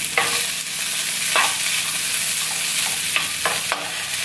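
Diced pre-cooked potatoes sizzling in oil in a nonstick pan, with a wooden spatula scraping and pushing them around in a handful of short strokes.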